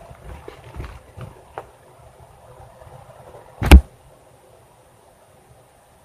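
A few faint clicks and rustles, then one loud, sharp thump about three and a half seconds in.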